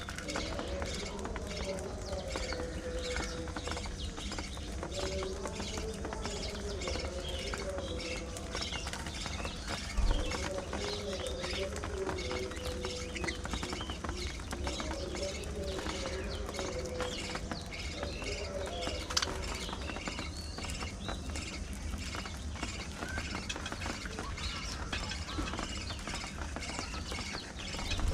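A flock of budgerigars chattering and chirping continuously in a dense jumble of short calls, with a lower wavering warble running underneath. A single dull bump stands out about ten seconds in.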